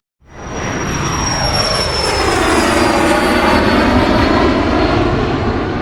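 An aircraft flying past: a loud rushing roar that swells and then fades, with a high whine falling slowly in pitch.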